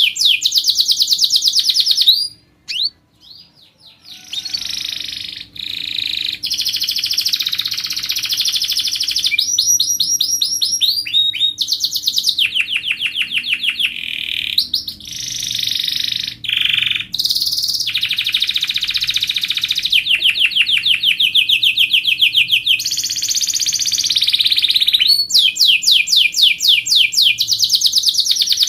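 Domestic canary singing a long, loud song made of fast trills of rapidly repeated notes, changing from one trill to the next every second or two, with a short pause about two seconds in.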